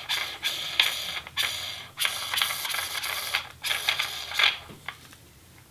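Plastic panel nut being turned on the threaded PVC mounting shank of a lab faucet: a dry plastic-on-plastic scraping and ratcheting in several strokes, stopping about four and a half seconds in.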